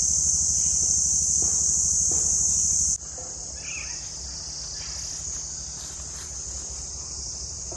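Steady high-pitched chorus of insects singing, dropping to a lower level about three seconds in.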